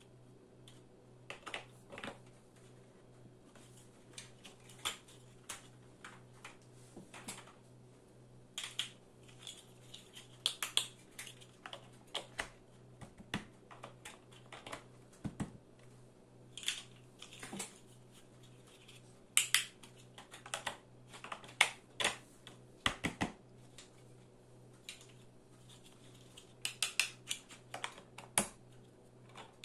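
Large plastic toy building blocks being snapped onto a block wall and pressed down by hand: irregular sharp plastic clicks and clatters, coming in busy clusters.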